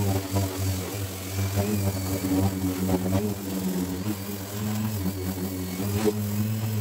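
Electric random orbital sander running steadily with a hum, scuffing the painted surface of a car door with P240 abrasive on a thick backing pad as preparation for painting.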